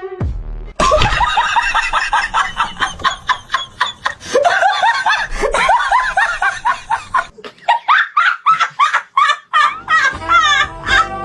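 A person laughing hard in quick repeated bursts, with a short break about ten seconds in.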